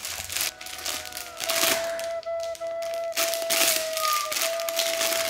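Added music: a single high piped note held for several seconds, with the crinkling of a clear plastic bag being handled under it.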